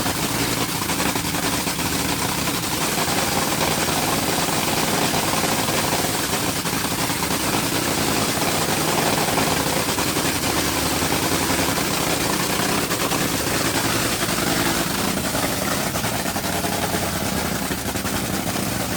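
Top Fuel dragster's supercharged V8 running steadily on nitromethane, a loud, rapid, choppy firing.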